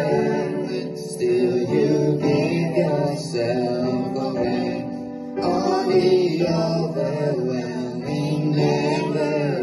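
Boys singing a worship song together over electronic keyboard accompaniment, their voices carried through microphones.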